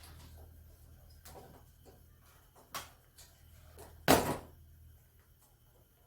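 A light knock about three seconds in, then a louder, sharper knock with a brief clatter just after four seconds. A faint low hum fades away in the first couple of seconds.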